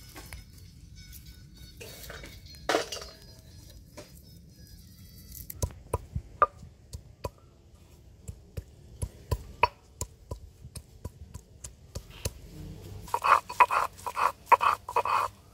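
Ginger being crushed and ground on a stone grinding slab (sil-batta) with a hand-held grinding stone. First comes a scattering of sharp stone knocks as the stone pounds the root. Near the end comes a louder run of rough grinding strokes, about three a second. Faint background music fades out in the first few seconds.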